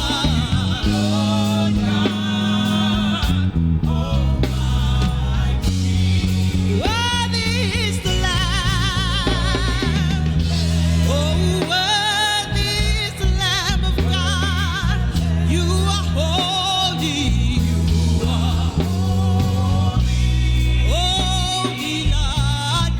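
Live gospel worship music: a vocalist sings wordless, wavering melodic runs over sustained bass chords and a band.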